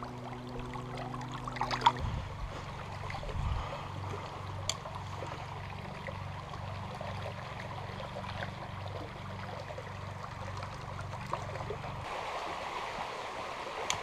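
A small shallow river flowing steadily over stones, with a trickling rush of water.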